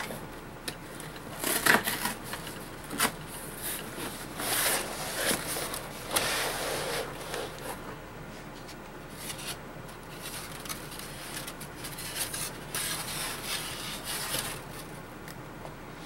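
Cardboard shipping box and styrofoam packing being handled: the box flap pulled open and a foam lid lifted and slid out, giving irregular scrapes and rubs of cardboard and foam. The sharpest scrape comes about two seconds in.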